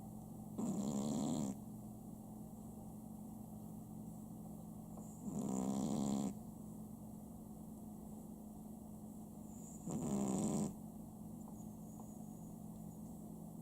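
Chihuahua snoring: three snores about four to five seconds apart, each lasting about a second, over a steady low hum.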